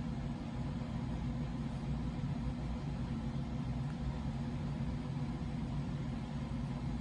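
Steady low mechanical hum from a running machine, even and unbroken.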